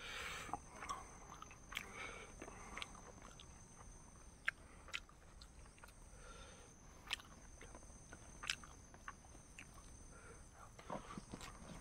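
People eating a meal of chicken and rice: quiet chewing with scattered small clicks and smacks.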